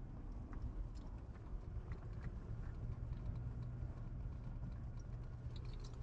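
Low, steady engine and tyre rumble inside a Jeep's cabin while driving on a snow-covered road, with a few faint scattered ticks.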